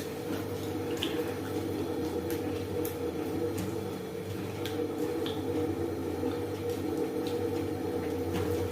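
Close-up eating sounds of a person chewing goat meat and dhindo: scattered wet mouth clicks and smacks, a few each second, over a steady low hum.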